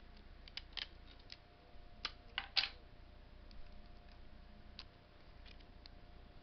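Small clicks and crackles of clear adhesive tape being handled and pressed around a fingertip, scattered and irregular, the loudest few coming about two seconds in, over a faint steady hum.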